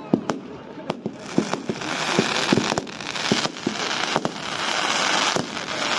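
Fireworks display: sharp bangs at uneven intervals, with a dense hiss of fireworks building up from about a second in and staying strong.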